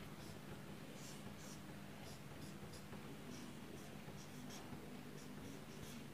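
Dry-erase marker being drawn across a whiteboard in many short, faint strokes, over a low steady hum.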